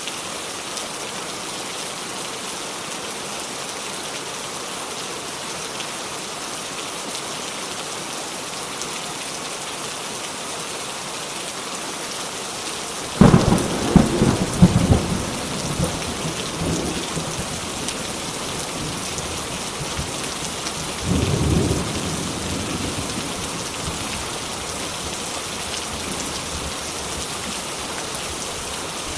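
Steady rain falling, broken about halfway through by a sudden thunderclap that crackles and rumbles for a few seconds, then a second, weaker roll of thunder about eight seconds later.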